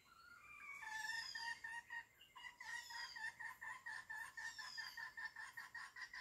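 Hen clucking in a rapid, even series of about five clucks a second. Three times a higher descending whistle-like call sounds over it.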